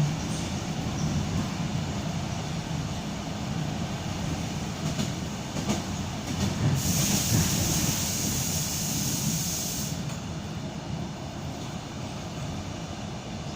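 ED9M suburban electric multiple unit running along the track: a steady low rumble of wheels on rails, with a few clicks about five seconds in. A loud hiss rises over it for about three seconds in the middle.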